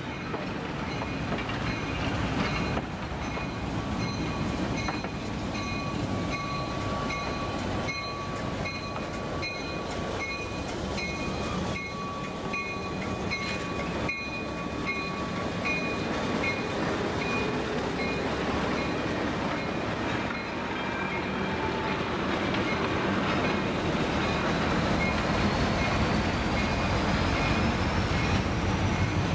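Passenger coaches rolling past on jointed rail, their wheels clicking about twice a second, with a squealing tone through the middle. Near the end a Lima LS-1000 diesel switcher grows louder with a rising whine as it approaches.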